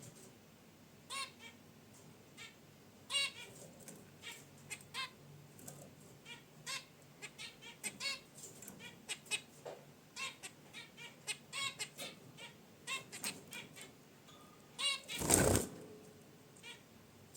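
Zebra finches giving many short, nasal honking calls, singly and in quick runs, scattered irregularly. About fifteen seconds in there is a brief, louder rustle, the loudest sound here.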